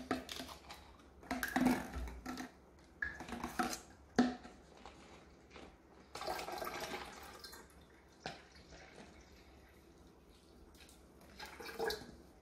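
Water poured from an upturned plastic bottle into a plastic jug already holding liquid, splashing in several short spells with a few knocks in between.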